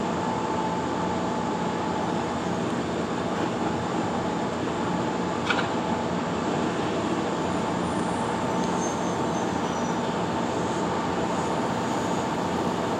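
Steady mechanical noise of a depot train-washing machine starting up as a Yoro Railway 620 series electric train creeps slowly into it, with one sharp click about five and a half seconds in.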